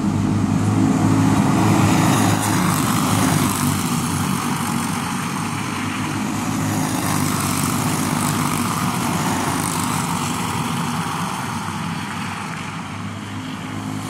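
Racing go-kart engines running at speed as karts pass along the street course. The sound is loudest in the first few seconds and slowly fades toward the end.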